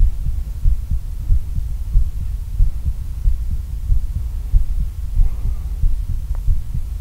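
Human heartbeat picked up by a Shure SM57 dynamic microphone with a Triton Fethead in-line preamp pressed against the chest, unprocessed except for gain: deep, low thuds about once a second over a steady low rumble.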